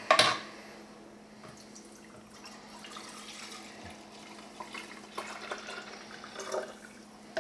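Liquid poured from a plastic measuring jug into a clear acrylic dosing container: a faint trickling and splashing in the second half. A brief sharp noise comes right at the start, and a low steady hum runs underneath.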